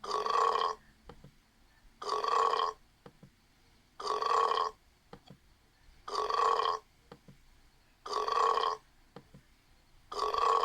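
A short burp repeated six times, about every two seconds, each one sounding nearly the same.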